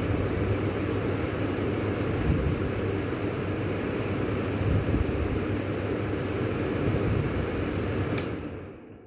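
Clipsal Airflow wall exhaust fan running steadily, a whooshing air noise over a low motor hum. A sharp click comes near the end, after which the sound fades away.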